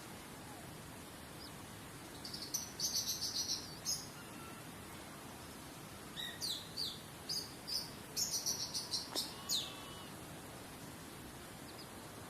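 A songbird singing two phrases of rapid, high, repeated chirps, the first about two seconds in and the second from about six to nine and a half seconds in, over a steady background hiss.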